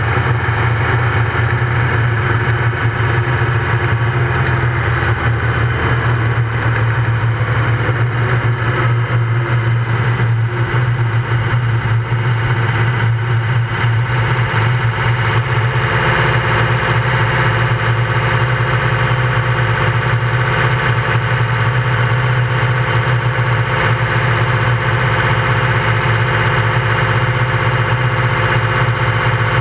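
Open-wheel race car's engine heard close up from a camera mounted on the car, running at low revs as the car rolls slowly to a stop, then idling steadily from about halfway through.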